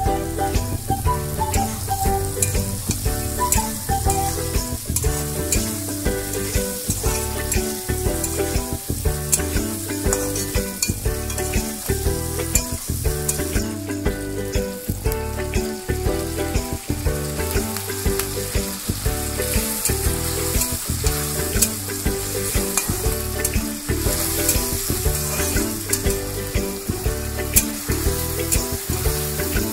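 Onions and potato sticks sizzling as they fry in oil in a kadai, with a metal spatula stirring them and clicking against the pan.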